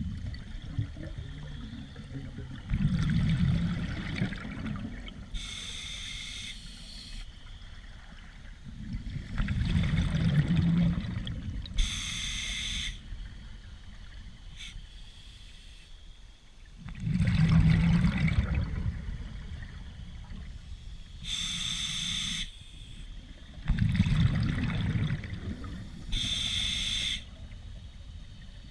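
Scuba diver breathing through an open-circuit regulator underwater, four slow breaths. Each has a hiss of the regulator on the inhale, about a second long, and a louder rumble of exhaust bubbles on the exhale.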